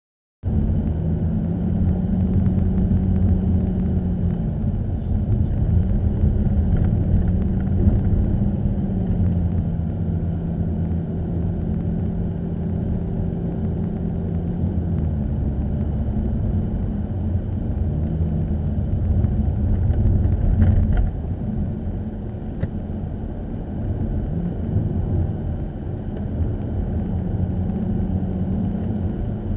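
A car being driven: a steady low engine and road rumble, with an engine tone that rises and falls several times as the speed changes.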